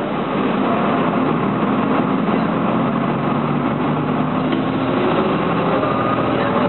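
Inside a MAN NL202 city bus under way: the rear-mounted diesel engine running under load over road and cabin noise, its note rising a little as the bus picks up speed.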